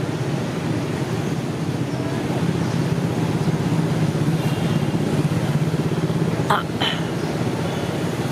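Steady low outdoor rumble, like distant traffic or wind, with two short high chirps about six and a half seconds in.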